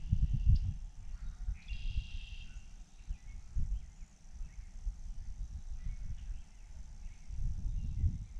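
Outdoor evening ambience: gusty wind buffeting the microphone in low rumbles, with short scattered bird calls above it, the clearest about two seconds in.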